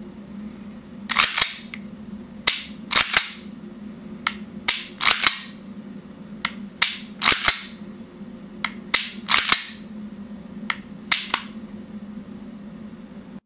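WE P226 airsoft gas blowback pistol's action worked by hand, making sharp metallic clicks and snaps. It runs in about seven repeats, each a light click or two followed by a louder snap with a short metallic ring.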